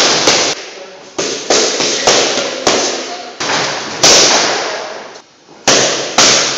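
Boxing gloves smacking focus mitts in combinations, about a dozen sharp smacks, several in quick pairs, each echoing and fading in a large metal-walled gym.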